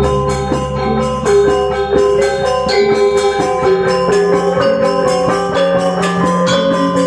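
Balinese gong kebyar gamelan playing a tabuh. Bronze metallophones are struck in fast, dense patterns over steady ringing tones.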